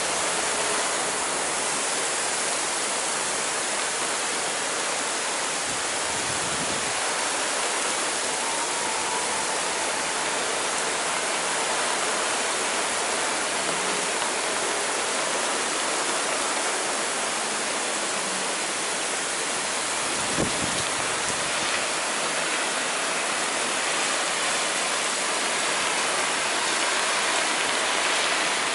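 Torrential thunderstorm rain falling steadily on streets and buildings, a dense even hiss. One short sharp click about two-thirds of the way through.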